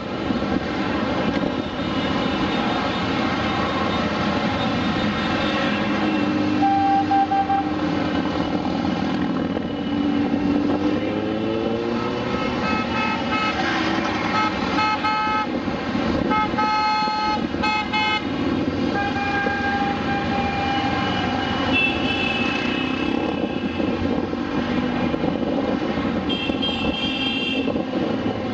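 A procession of many motorcycles riding past, their engines running together in a continuous dense drone, with one engine revving up about ten seconds in. Horns toot repeatedly in the middle stretch and again near the end.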